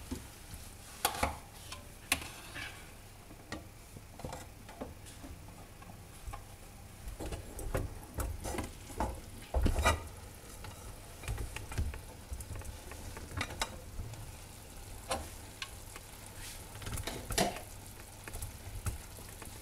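Stuffed peppers and rice sizzling in their juices in a frying pan on a gas burner, with scattered clicks and knocks as the pan and the plate covering it are handled; the loudest knocks come about halfway through.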